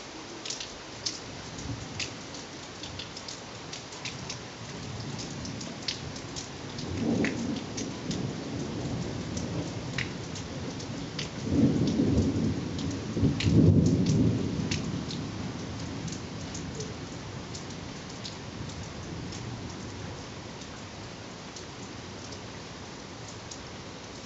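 Rain falling steadily, with large drops clicking close by, and a long roll of thunder that builds about seven seconds in, is loudest around the middle and slowly fades away.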